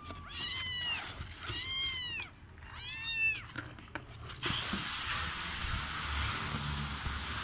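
Siamese kittens meowing: three high-pitched meows, each rising and falling in pitch, over the first three and a half seconds. After that a steady hiss takes over for the rest.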